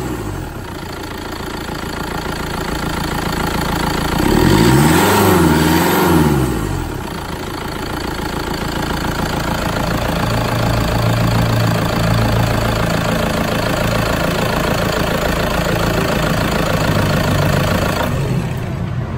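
Toyota Sport Rider's 1KD-FTV 3.0-litre four-cylinder common-rail turbodiesel idling, revved once about four seconds in, its pitch rising and falling back to idle by about seven seconds, then idling steadily.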